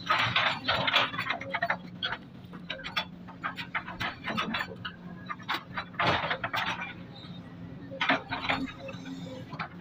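Sumitomo hydraulic excavator at work: a steady engine hum under repeated metal clanks and rattles as the bucket teeth scrape through soil and brush, busiest at the start, about six seconds in and about eight seconds in.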